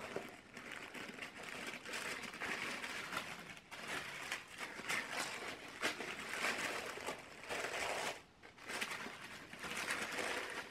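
Tissue paper rustling and crinkling as hands unfold and fold it back inside a gift box, a continuous run of soft crackles with a brief pause about three-quarters of the way through.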